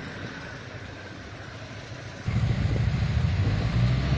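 Vehicle noise heard from inside the cab in a snowstorm: a steady hiss of wind and road noise, then about two seconds in a much louder low rumble sets in and holds.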